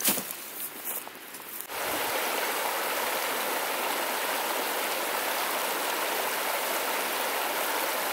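A canvas rucksack set down hard on dry grass with a thump and some rustling, then, from about two seconds in, a shallow river running over a stony bed: a steady rush of water.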